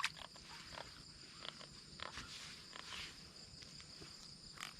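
Crickets and other night insects chirring steadily in a high, even drone, with a few faint clicks and rustles over it.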